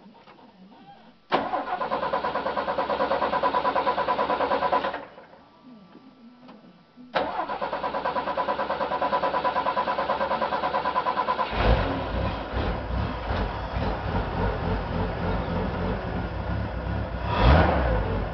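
A 1982 Ford F150's 300 cubic inch inline six (bored .030 over) is cold-started after the winter. The starter cranks it for about four seconds without it firing, stops, then cranks again for about four seconds until the engine catches and runs. It is given a brief rev near the end.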